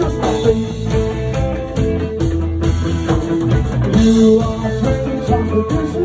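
Live punk rock band playing: electric guitars, bass guitar and drum kit, loud and steady.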